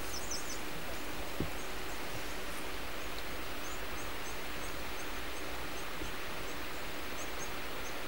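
Outdoor nature ambience: birds chirping, with short high chirps scattered every second or so over a steady background hiss.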